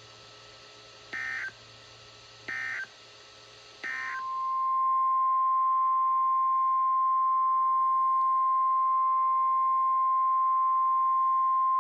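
NOAA Weather Radio test: three short digital header bursts a little over a second apart, then the steady 1050 Hz warning alarm tone, a single loud unbroken note that starts about four seconds in and keeps going.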